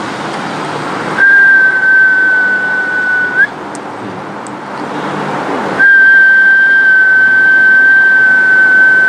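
Two long whistled notes held at one steady high pitch, each lifting slightly at its end. A hiss swells in the gap between them.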